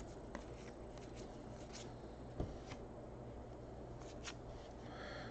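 Trading cards being slid and flicked through by hand: faint scattered slides and ticks, one a little louder about two and a half seconds in.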